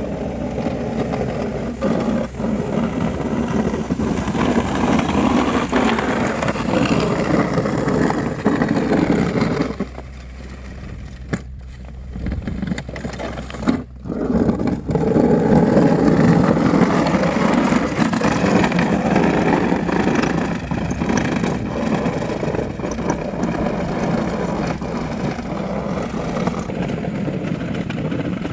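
Homemade tracked remote-control snow plow running on its DC electric drive motors as it pushes snow with its blade. The sound is a loud, steady mechanical noise that drops quieter for a few seconds about ten seconds in, then picks up again.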